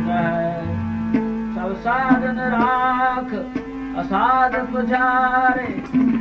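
Sikh kirtan music: a held, gliding melody over a steady drone, with tabla strokes.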